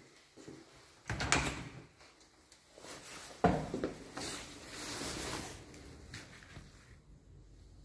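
A door being opened and handled: a cluster of knocks and clatters a little over a second in, and a sharp knock at about three and a half seconds, followed by a soft hiss that dies away.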